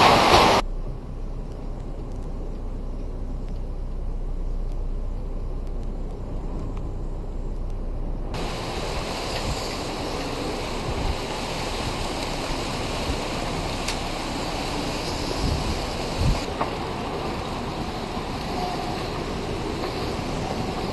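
Strong storm wind blowing across the microphone. A loud gust cuts off abruptly about half a second in and gives way to a dull low rumble; from about eight seconds in the wind turns fuller and hissier, with a few faint knocks.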